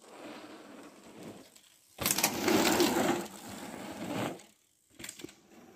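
Mountain bike riding on a dirt jump track: tyre and frame noise, with a sudden loud, rough rumble and rattle about two seconds in that lasts about two seconds, then a few sharp clicks near the end.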